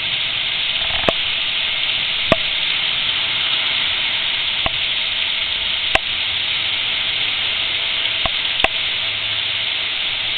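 Heavy rain falling steadily: a dense, even hiss, with a few sharp taps scattered through it.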